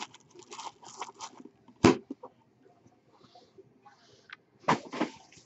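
Clear plastic wrapping crinkling and a cardboard sports card box being handled and opened, with many small crackles and clicks. A sharp knock a little under two seconds in is the loudest sound, and there are a couple of louder rustles near the end.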